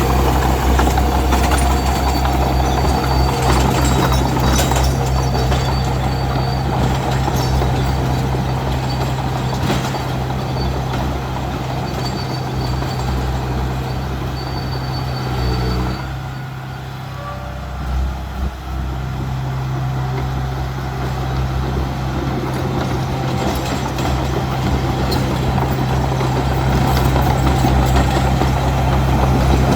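Heavy diesel engine of earthmoving machinery running steadily, easing off for a couple of seconds a little past halfway, then picking up again.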